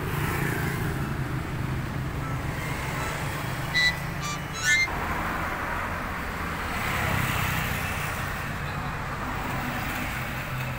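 Street traffic: a steady engine rumble with road noise, broken by two short high-pitched tones about four seconds in, the second one rising.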